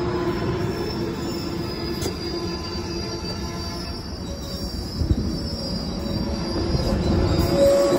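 Metrolink double-deck passenger coaches rolling past close by, their steel wheels rumbling on the rails with a steady high-pitched wheel squeal. A sharp clunk comes about five seconds in.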